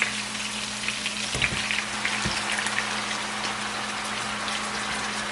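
Chicken pieces sizzling and crackling as they brown in a hot pan, with a steady low hum beneath.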